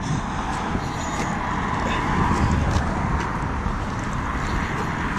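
Steady wind on the microphone mixed with the hum of cars on the highway bridge alongside, with a few faint clicks.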